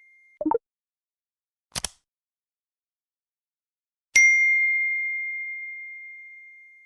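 A bright bell-like ding sound effect: one clear high note struck a little over four seconds in, ringing and fading slowly. Before it come a short soft pop about half a second in and a brief swish-like click near two seconds.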